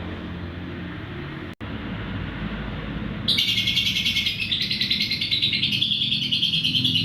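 Lovebird chattering in a long, fast, unbroken 'ngekek' trill that starts abruptly about three seconds in, over a low steady hum.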